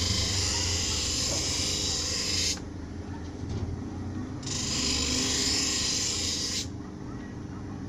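Two long steady hisses, each starting and stopping sharply, over a low steady hum.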